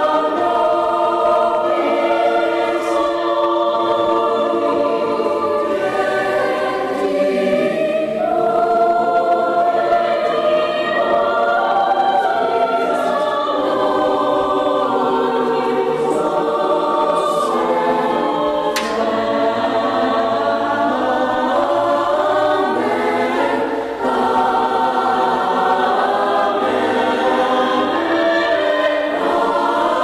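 Mixed choir of young men and women singing in sustained, slow-moving harmony.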